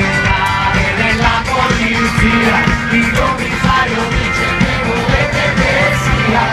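Live pop-rock band with singing, played loud through a concert PA, with held bass notes and a steady drum beat.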